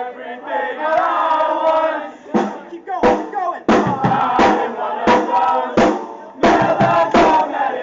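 Live band music: a voice singing over a drum kit, with drum hits coming in regularly from about two seconds in.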